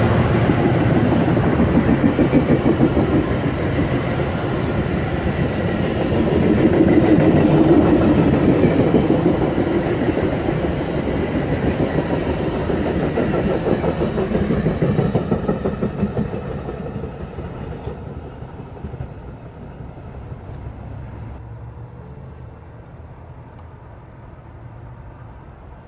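Metra express commuter train of stainless-steel bilevel coaches passing at speed, its wheels clattering rapidly over the rails. The sound fades away from about 16 seconds in as the train recedes.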